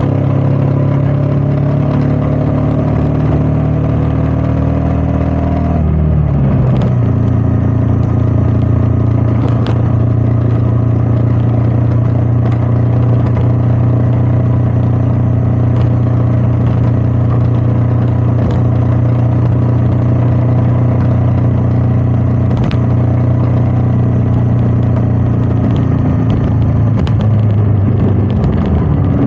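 Royal Enfield Meteor 350's single-cylinder engine running under way, its pitch rising for the first few seconds, then dropping about six seconds in and holding steady, with another change near the end; wind noise over the mic.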